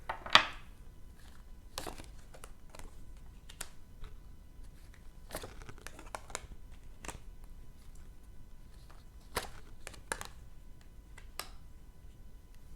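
Tarot cards being handled: shuffled and laid down, a series of short paper snaps and rustles with the sharpest snap about half a second in.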